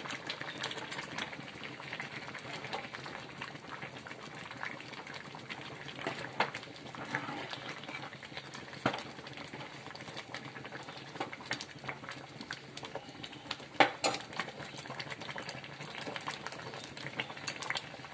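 A pot of soft-cooked rice, lentils and vegetables bubbling on the gas while a spoon stirs it, with scattered clinks of the spoon against the pot, the loudest about fourteen seconds in.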